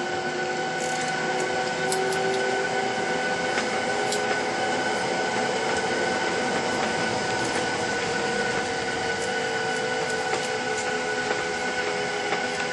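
Cabin noise of a Boeing 737-900ER taxiing, heard over the wing: its CFM56-7B jet engines at taxi power give a steady whine of several tones over a hum, and one lower tone slowly rises in pitch.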